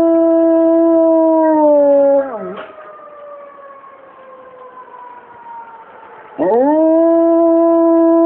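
A dog howling along with a siren. One long, held howl drops in pitch and breaks off about two seconds in, and a second howl starts about six and a half seconds in. Between the howls the siren's fainter wail slides slowly down in pitch.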